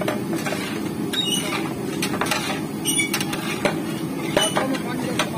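A long-handled metal ladle stirring a large metal cooking pot of curry, knocking and scraping against the pot's sides and rim about a dozen times at irregular moments, over a steady low rumble.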